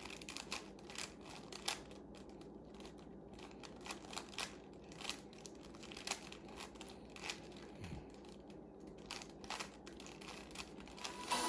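Plastic 3x3 Rubik's cube being turned quickly by hand: a run of irregular clicks, several a second, as its layers snap round.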